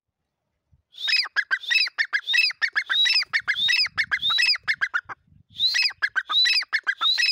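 Dakhni teetar (francolin) calling loudly in a fast, repeated phrase. Each phrase is a rising whistled note followed by a quick string of lower notes. It starts about a second in, breaks off briefly near five seconds, then resumes.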